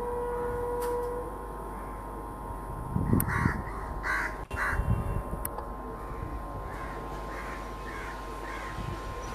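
Crows cawing: a cluster of loud, harsh caws about three to five seconds in, then a run of five fainter caws about half a second apart near the end.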